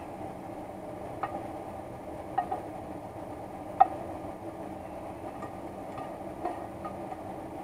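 A spatula scraping and knocking against a stainless steel frying pan as browned diced chicken is scraped out into a bowl: a handful of scattered light metallic clicks over a steady low background.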